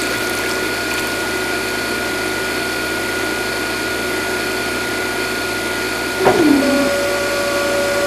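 A small electric water pump runs steadily with water noise, a continuous motor hum. About six seconds in, a tone drops quickly in pitch and a steady higher hum then holds.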